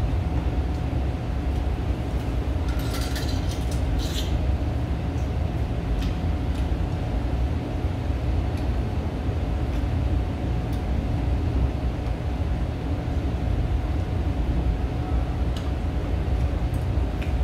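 Steady low rumble of restaurant room noise with a faint constant hum. A few light clinks of chopsticks against ceramic bowls come about three to four seconds in, and there are scattered small ticks later.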